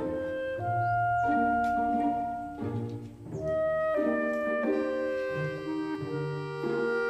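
Instrumental background music with slow, held notes and chords that change about every second, dipping briefly around three seconds in.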